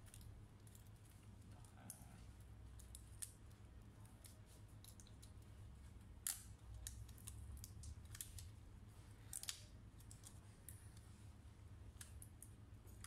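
Faint, irregular metallic clicks and ticks of a precision screwdriver working the tiny screws in an Acer Swift 3 laptop's top case, over a steady low hum.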